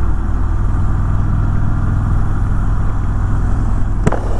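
Harley-Davidson Electra Glide Ultra Limited's V-twin engine running at a steady speed while riding, with a single sharp click near the end.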